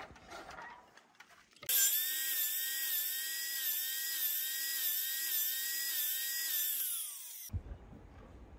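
DeWalt sliding mitre saw running at speed with a high whine, starting suddenly about two seconds in. Its pitch dips about twice a second as the blade bites into the MDF skirting board for each closely spaced kerf cut. The whine sags in pitch near the end and cuts off abruptly.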